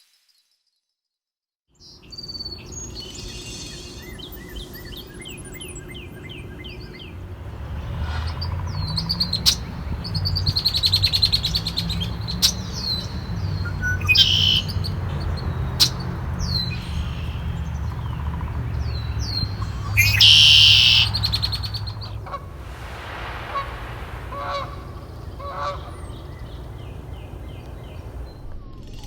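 Birds singing and calling outdoors: many short repeated chirps and trills from several birds, with louder calls about a third of the way in and again past the middle. A low rumble runs under the middle part, and the first two seconds are silent.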